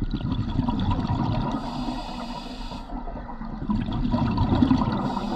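Rushing, bubbling water, with a hiss that comes in about a second and a half in and again near the end.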